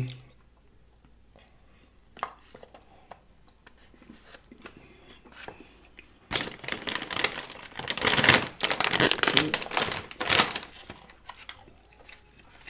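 A large plastic potato chip bag crinkles and rustles loudly for about four seconds as it is handled and moved, starting about six seconds in. Before that there are only faint chewing and mouth sounds.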